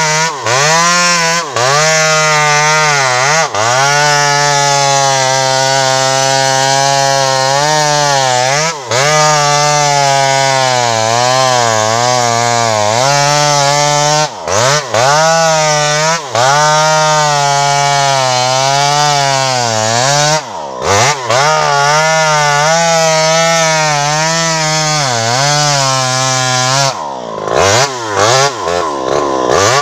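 Home-assembled 52cc two-stroke chainsaw running at high revs while cutting, its pitch wavering up and down under load. Near the end the throttle drops off and the engine falls to a low pitch, then revs back up in a few quick blips.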